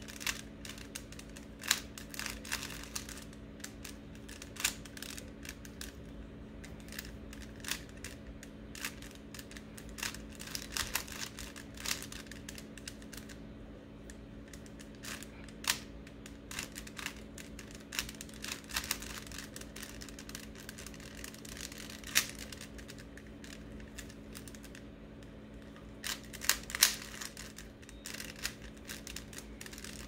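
Rubik's Cube being turned by hand: its plastic layers click and clack in quick, irregular runs of turns, with a few louder clacks.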